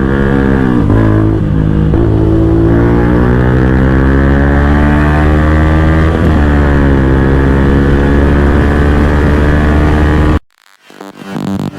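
Bajaj Pulsar N160's single-cylinder engine running hard through a full-system aftermarket exhaust. Its pitch dips briefly twice and then climbs again, as a bike does when shifting up under full throttle. The engine sound cuts off suddenly near the end, and electronic dance music comes in.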